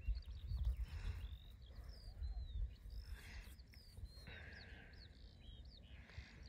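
Small birds chirping and singing in many quick, short notes that slide up and down, over a low rumble on the microphone.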